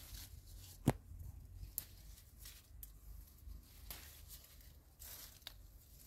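Leaves and stems being snapped off a leafy plant by hand, with foliage rustling: one sharp snap about a second in, then a few quieter snaps.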